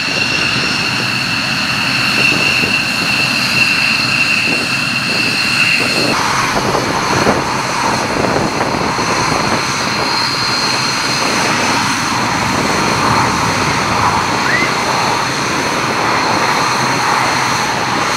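Belgian Air Force F-16's Pratt & Whitney F100 turbofan running at taxi power: a steady high whine over a rushing jet noise. About six seconds in the whine drops away and the rushing noise takes over.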